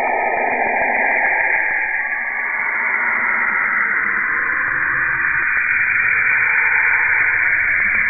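Saturn's radio emissions converted into audible sound: a dense, steady hiss in bands, with faint tones drifting in pitch that fade out about two seconds in.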